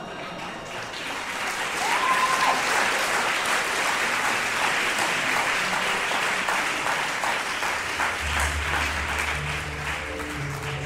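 Theatre audience applauding, the clapping swelling after the first couple of seconds and holding steady. Low music fades in under the clapping near the end.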